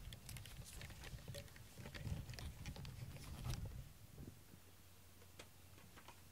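Soft rustling and handling noises of a plush fleece blanket close to the microphone, with many small clicks over a low rumble. It is busiest in the first four seconds, then goes quiet with only a few faint ticks.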